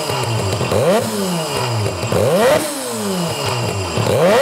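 Norton twin-rotor Wankel rotary motorcycle engine blipped on the throttle about three times, each rev rising sharply in pitch and falling back toward idle.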